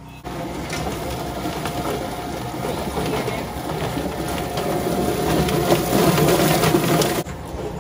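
Drum-style chicken plucker running: its motor spins the rubber-fingered plate so the birds tumble and knock against the fingers and the steel drum, pulling out their feathers, while a hose sprays water into the drum. The clatter starts abruptly and cuts off suddenly near the end.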